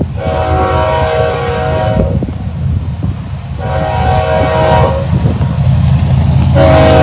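Approaching BNSF freight train's diesel locomotive sounding its multi-note air horn in three blasts: one of about two seconds at the start, a shorter one about three and a half seconds in, and a third starting near the end. A steady low rumble runs underneath and grows louder as the train nears.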